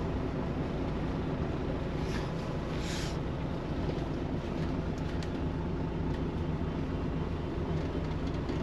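The motor cruiser's inboard engines idling after start-up, a steady low drone heard from inside the wheelhouse.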